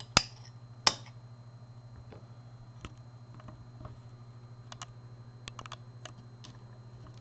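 Small metal lock parts and a key being handled on a hard surface: two sharp clicks about a second apart near the start, then scattered light ticks and taps.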